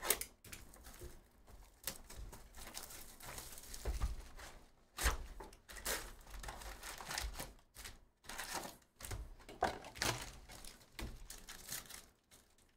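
Cardboard trading-card hobby box handled and its lid flipped open, then a foil card pack crinkling and tearing as it is pulled open by hand. A few sharp knocks from handling the box come through the rustle.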